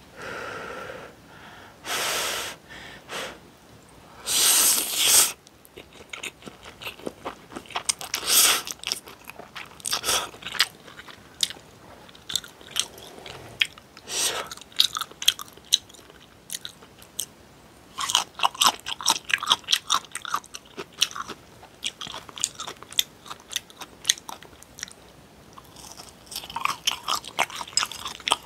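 Close-miked slurping and chewing of Buldak spicy stir-fried instant noodles: a few loud slurps in the first five seconds, then a long run of quick chewing clicks.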